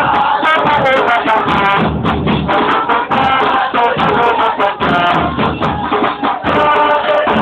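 A group of football supporters singing a chant over drums and percussion.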